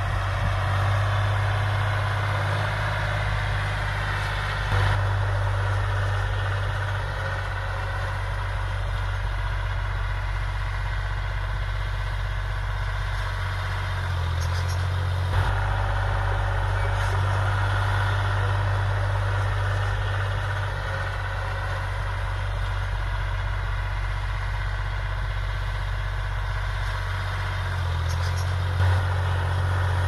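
John Deere 5103 tractor's three-cylinder diesel engine running steadily under load, pulling a rotavator whose blades churn through the soil.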